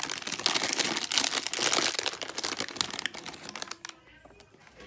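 Plastic packet of dog dental sticks crinkling loudly as it is handled and a chew stick is pulled out; the crinkling stops about four seconds in.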